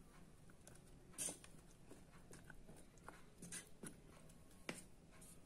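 Faint, scattered pops and clicks of pigeon curry simmering in a steel pot, over a low hiss.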